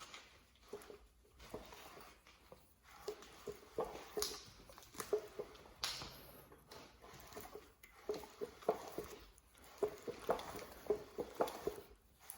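302 V8 engine with its heads off being turned over by hand: a run of soft, irregular clicks and scuffs from the crank and pistons moving in the bores, with no knocking from the bottom end.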